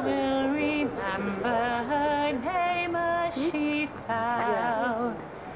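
A woman singing a slow melody of long held notes, some with vibrato.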